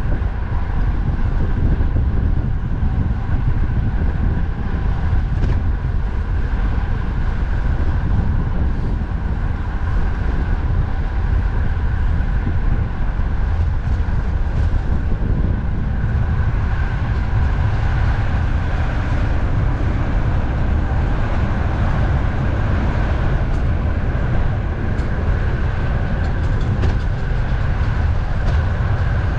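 Strong wind rumbling on the microphone of a riding cyclist, over steady road and traffic noise.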